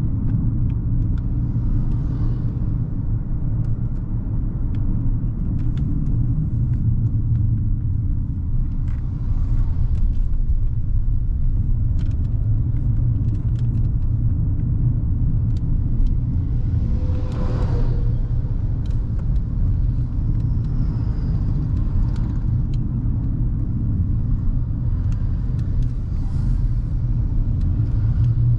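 Hyundai Creta with its 1.5-litre petrol engine under way: a steady low rumble of engine and road noise, with scattered light clicks and a brief louder noise about two-thirds of the way through.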